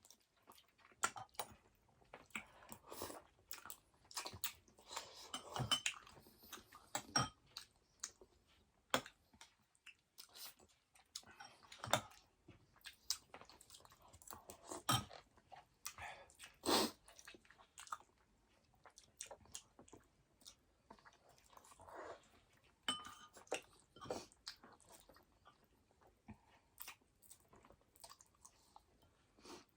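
A person chewing food close to the microphone, with irregular sharp crunches and wet mouth clicks.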